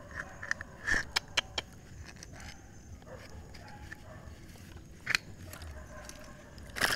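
Muffled underwater sounds of a spearfisher handling a caught tilapia and a mesh catch net: a few sharp clicks about a second in and another near five seconds, then a burst of splashing water right at the end.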